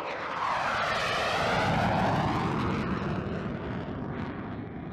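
Single-engine F-16 fighter jet flying low past and climbing away. Its engine noise swells to a peak about two seconds in, with a sweeping, falling tone, then fades as the jet pulls away.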